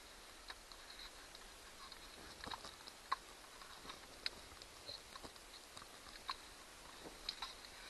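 Irregular light clicks and taps of a small plastic clock housing and its screws being handled during disassembly, the sharpest about three and four seconds in.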